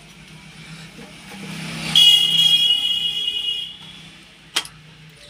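A loud, steady, high-pitched whistling tone lasting about a second and a half, rising out of a building hiss about two seconds in, followed by a single sharp click.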